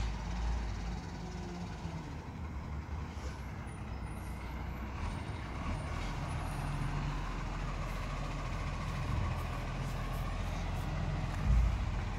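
Garbage truck's engine running as it drives up and slows to a stop at the kerbside bins, with a brief low thump near the end.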